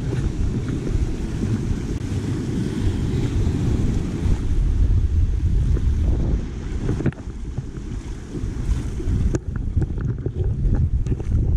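Wind buffeting the microphone over small waves washing and foaming across a shallow rocky reef flat.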